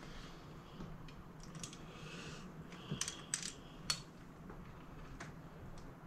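Light metallic clicks and clinks of hands and small tools working a stuck screw and bolt in a folding-bike frame hinge, with a few sharp ticks about three to four seconds in.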